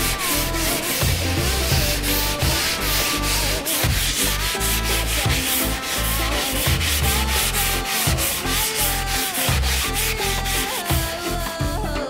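Cloth pad rubbing paste wax into a bare wooden board in rapid, repeated back-and-forth strokes, a rhythmic scrubbing. Background music plays under it.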